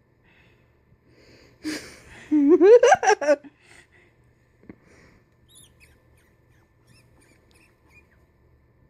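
Guinea pig squealing: a short rustling burst, then one loud wavering squeal that rises in pitch and breaks into a few quick squeaks, about two and a half seconds in.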